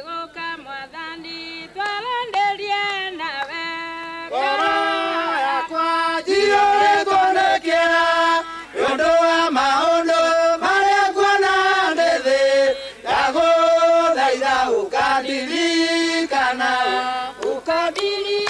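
A mixed group of men and women singing a Kikuyu gospel song together. The singing is thinner at first and grows fuller and louder about four and a half seconds in.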